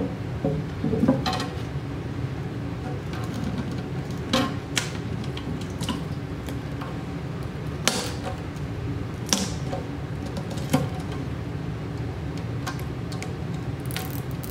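Plastic rim being pried and pulled off a glass aquarium, giving a few sharp cracks and snaps a second or two apart as the old silicone gives way, over a steady low background noise.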